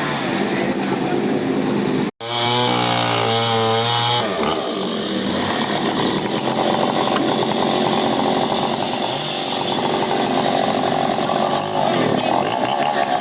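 Chainsaw running and cutting up a fallen tree, its engine pitch wavering up and down as it works. The sound cuts out for an instant about two seconds in.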